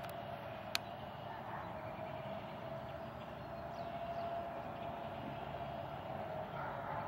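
Distant Federal Signal 2001 outdoor warning sirens sounding a steady tone, faint and gently swelling and fading. A sharp click comes just under a second in.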